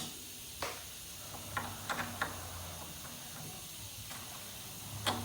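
A few scattered light clicks and knocks of metal suspension parts being shifted by hand while a CV axle is worked into line with the hub.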